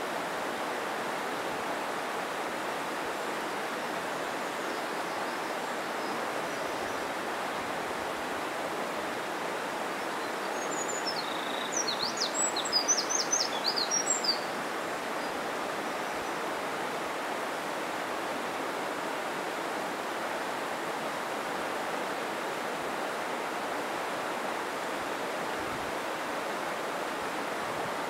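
Steady rushing of a mountain stream, with a bird's rapid high chirping song for about three seconds midway.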